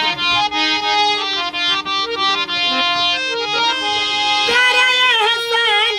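Harmonium playing a melody over a held low drone note, with steady reedy tones. A woman's singing voice joins about four and a half seconds in, its pitch wavering.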